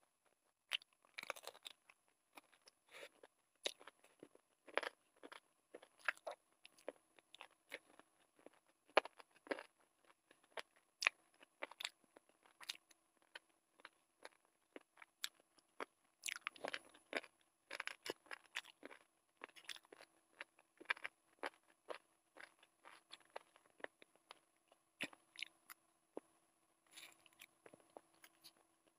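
Close-up mouth sounds of a person chewing and biting chicken and Maggi noodles: many irregular wet clicks and crunches, with a faint steady hum underneath.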